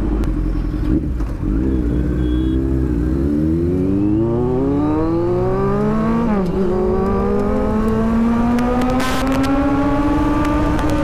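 Kawasaki Z900's inline-four engine through an aftermarket SC-Project exhaust, accelerating: it holds steady revs at first, climbs quickly from about three seconds in, drops with an upshift about six and a half seconds in, then climbs steadily again in the next gear.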